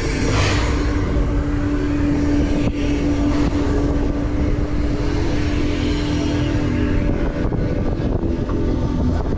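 Wind buffeting the microphone on a moving amusement ride, over a steady mechanical hum that drops slightly in pitch about seven seconds in.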